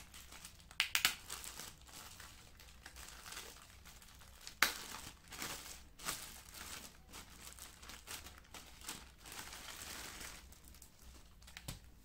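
Clear plastic packaging bag crinkling and rustling as it is handled and pulled off a wrapped accessory, with sharp loud crackles about a second in and again about halfway through.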